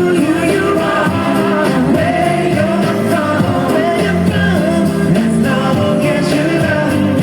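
Upbeat pop dance music with a singing voice over a steady beat.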